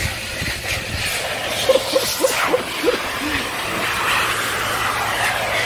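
A bird giving a quick series of about six short hooting notes, each bending in pitch, the last one lower, over a steady background hiss.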